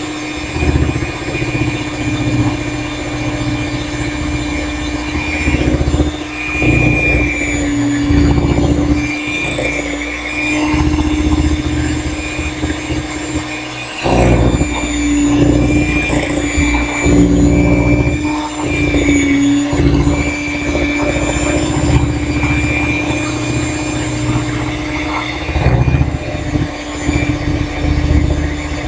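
Electric hand mixer running at a steady speed, its beaters churning thick cake batter in a glass bowl: a constant motor hum and whine over an uneven low rumble from the beaters moving through the batter.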